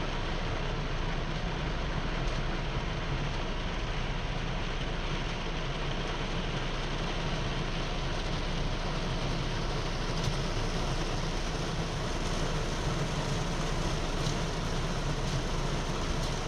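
Heavy rain falling steadily: an even, unbroken hiss with a few faint drop ticks.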